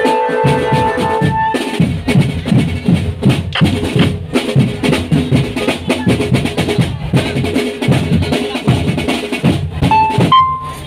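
Marching drum band playing: snare and bass drums beating a fast, steady rhythm. Held melodic notes sound over the drums at the start and stop about a second and a half in.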